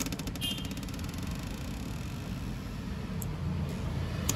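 Sharp clicks from a Leeb hardness tester's D-type impact probe being loaded and fired on a steel test block, one at the start and one near the end, over a low steady background rumble.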